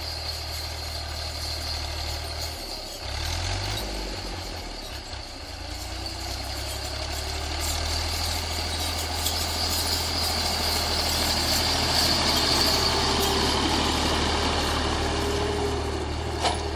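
Fiat 480 tractor's three-cylinder diesel engine running steadily under load while pulling a tined cultivator through the soil, growing louder as it comes closer. A sharp click near the end.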